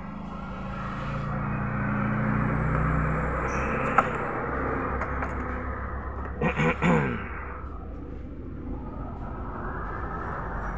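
Motor vehicle passing on a street: engine noise swells over the first few seconds and then holds. There is a sharp click about four seconds in, and a brief falling-pitched sound near seven seconds.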